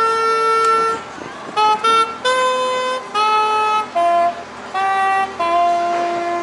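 A tune of separate held notes, each steady in pitch with sharp starts and stops, played loudly on a whistle- or horn-like wind instrument.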